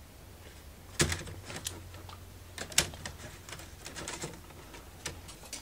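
Thin wooden model-kit sheets and small parts clicking and clattering as they are handled, with two sharper clacks about one second in and near the three-second mark.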